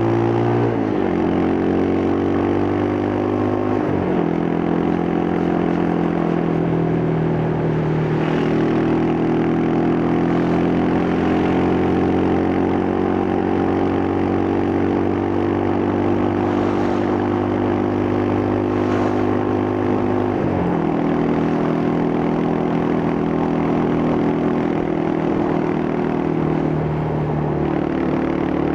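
Yamaha Scorpio's single-cylinder four-stroke engine running under way through its stock exhaust, the exhaust note holding steady and changing pitch in sudden steps a few times.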